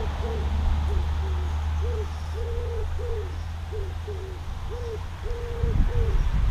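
A pigeon cooing in the background: a run of soft, low coos, some short and some drawn out, repeating in a phrase every few seconds.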